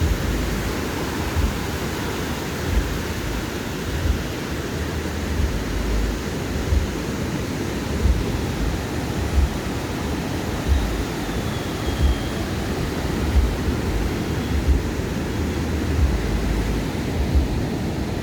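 Surf washing onto a sandy beach, a steady rush of waves, with a soft thump repeating about every 1.3 seconds from slow footsteps in the sand.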